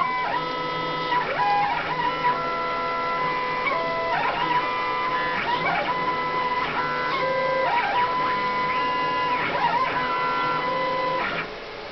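Stepper motors of a home-built CNC router driving its axes through a G-code run, with the router spindle off: a whine in several pitches that jump and glide up and down with each move, stopping suddenly near the end.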